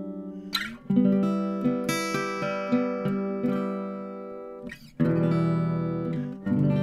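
Acoustic guitar recorded through a Rode NT5 microphone and an Aphex 107 tube mic preamp, playing ringing chords. A strummed chord comes about a second in, followed by picked notes about three a second, with fresh strums near five seconds and again near the end.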